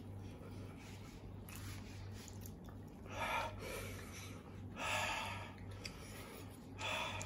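A man breathing heavily while eating, with three short, noisy breaths or sniffs about a second and a half apart, over a steady low hum.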